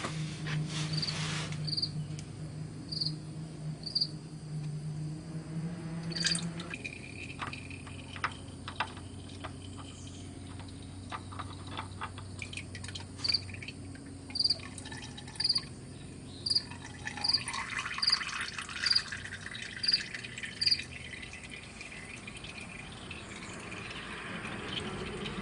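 A cricket chirping, short high chirps repeating about once a second, loudest in the second half. Clicks and knocks of the oil filter wrench being fitted and worked on the filter come in the middle, over a low steady hum that fades out early.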